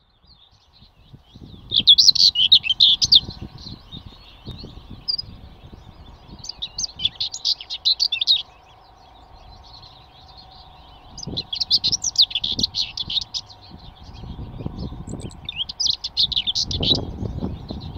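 Birdsong: a small bird singing rapid, twittering phrases of a second or two, four times, a few seconds apart, over a faint low rumble.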